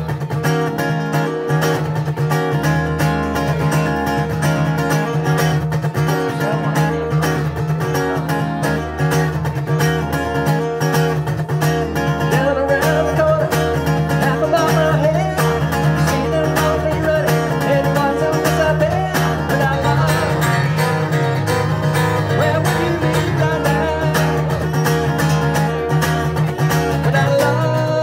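Steel-string acoustic guitar strummed in a steady, repeating rhythm, with a man singing over it from about halfway in.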